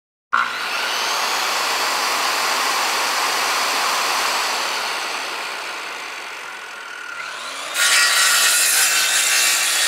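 Power carving sound effect: a rotary tool grinding into wood, steady at first and easing off around the middle. Near the end the tool spins up and a louder, brighter grind follows.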